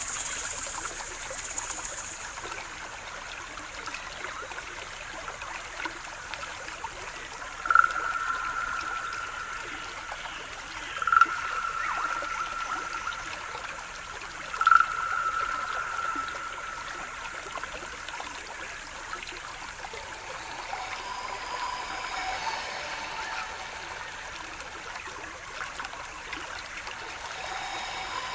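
Water running steadily in a stream. Three long held notes at the same pitch come in about three and a half seconds apart near the middle, with softer tones near the end.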